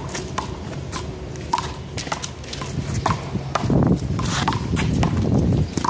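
One-wall handball rally: a small rubber handball sharply smacked by bare or gloved hands, striking the wall and bouncing on the court, two or three sharp smacks a second, with shoe scuffs on the pavement.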